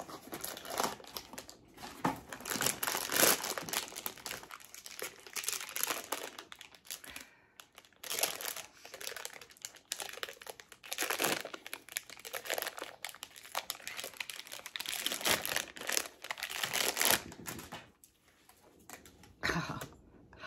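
Tokidoki blind-box packaging being opened by hand: the wrapper crinkles and tears in irregular bursts of rustling, with a couple of brief pauses.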